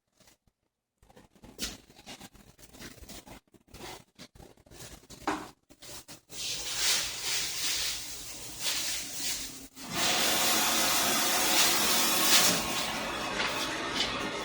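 Scattered clicks and knocks, then a Venmar HEPA air exchanger's fan blowing air: a rushing hiss that builds about halfway through and runs steady in the last few seconds.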